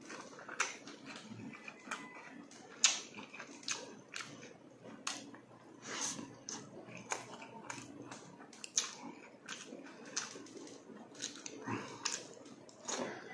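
Wet chewing and lip smacking of someone eating soft vinegar-stewed tuna jaw and vegetables by hand, with irregular sharp mouth clicks and smacks throughout.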